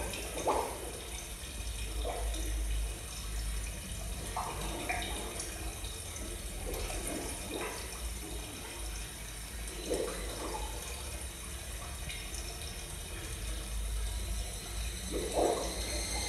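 Running water with irregular gurgles every second or two over a steady low rumble.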